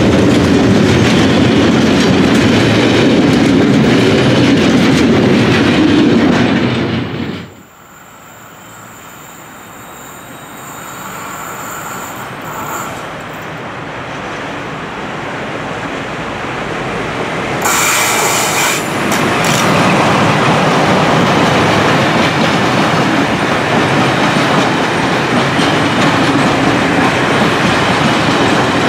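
Freight wagons rolling past close, with steady rumble and wheel clatter, cut off suddenly about a quarter of the way in. Then a second freight train approaches, growing steadily louder. About 18 seconds in, its locomotive and loaded wagons reach the microphone with a sudden jump in loudness and rumble past with wheel clatter.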